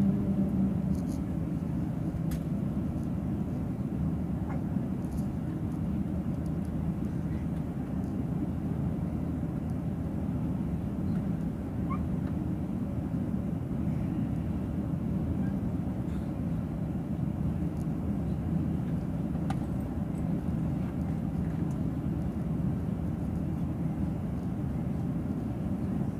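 Steady low rumble inside the cabin of an Airbus A350 airliner taxiing, its engines at low taxi power, with a few faint ticks from the cabin.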